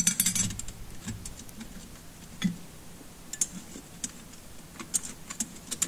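Yamaha YXZ1000 clutch friction and steel plates clicking against each other and the clutch basket as they are stacked back into it by hand: a quick run of clicks at the start, then single clicks every second or so.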